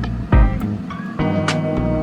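Background music with a steady beat: kick drum, ticking cymbals and guitar.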